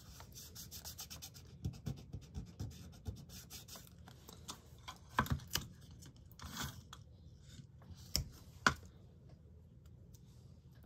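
Fingers rubbing and pressing masking-tape strips down onto paper: a run of light scratchy ticks, then a few sharper taps and clicks about halfway through as more tape is handled, quieting near the end.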